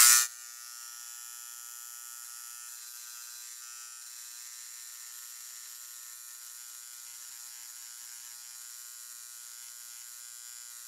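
Dremel electric engraver buzzing steadily while its tip, carrying 40 V DC, sparks against the end of a titanium framelock's lockbar, welding on a layer of tungsten carbide; here it is smoothing out the grainy deposit. A brief loud burst right at the start.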